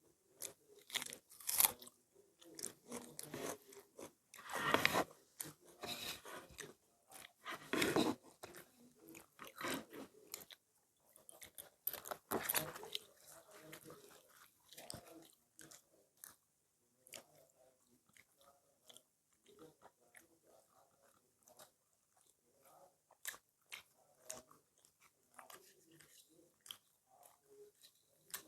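People chewing and biting food close to the microphone, with a run of louder crunches in the first half, then quieter, sparser chewing.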